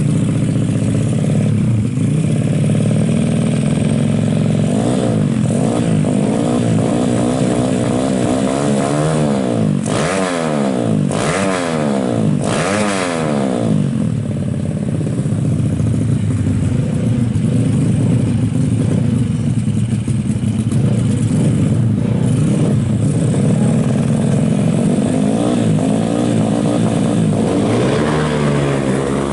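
Suzuki Smash motorcycle's single-cylinder four-stroke engine, bored up to 130cc and breathing through an AHRS racing exhaust, running loud and steady. Near the middle it is revved up and down several times in quick succession.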